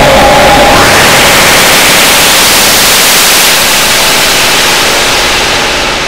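Mutable Instruments Clouds granular processor, fully wet, putting out loud harsh noise. A held two-note tone gives way about a second in to a dense hiss that fills the whole range, then slowly thins and fades in the second half.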